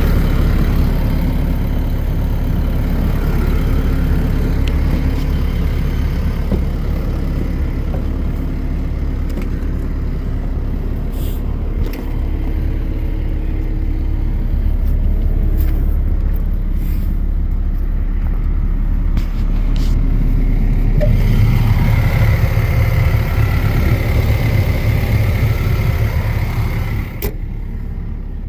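Kobelco SK215SRLC excavator's diesel engine running steadily. About three-quarters of the way through it comes under more load, louder and with a higher whine, then eases off near the end. A few sharp clicks sound along the way.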